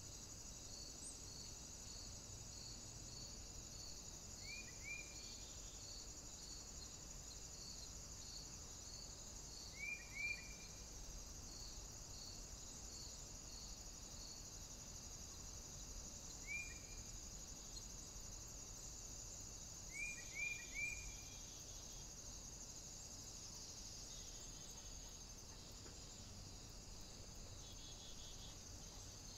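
Steady high insect chorus with a regular high chirp about twice a second through the first half. A few short falling chirps come singly and in twos and threes, the loudest sounds.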